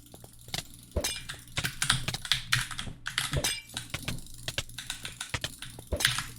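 Many sharp clicks at an irregular, fast rate, like rapid tapping, getting denser and louder about a second in.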